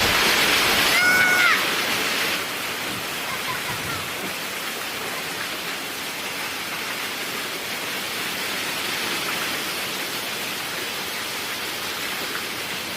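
Heavy rain pouring down in a steady rushing hiss, loudest for the first two seconds. A brief high-pitched tone sounds about a second in.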